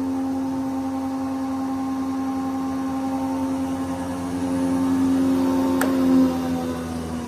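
Hammer A3 31 planer-thicknesser with its three-knife cutterhead, running with a steady humming whine. A sharp click comes near the end, after which the pitch starts to fall as the machine slows.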